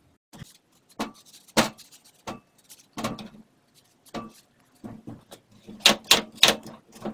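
Knife cutting peeled green melon into small chunks: irregular taps and clicks of the blade against the wooden cutting board and plate, coming in quick succession near the end.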